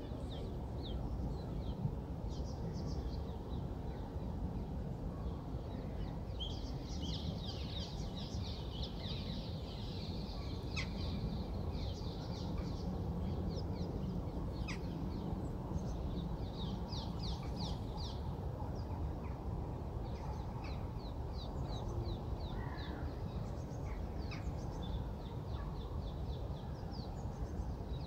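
Many short, high bird calls in quick runs, heard again and again over a steady low background rumble.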